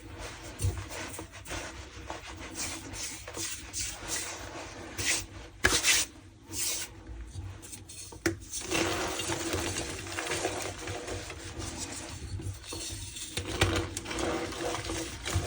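Reformed gym chalk being rubbed and crushed by hand, giving a dry, squeaky scraping and crumbling. Irregular strokes come with a few sharper cracks around the middle, then denser, steadier rubbing through the second half.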